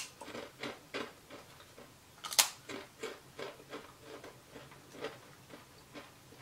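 Potato crisps being bitten and chewed: a sharp crunch right at the start, another loud crunch about two and a half seconds in, and a run of smaller, irregular crunches in between and after.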